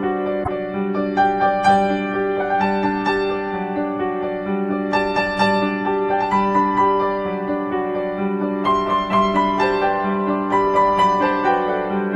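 Background music: gentle piano melody over sustained chords.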